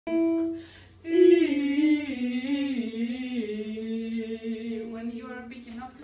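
A woman singing without accompaniment: a short held note, then a long phrase that wavers and sinks slowly in pitch. The teacher judges the singing not precise, a sign of lack of air.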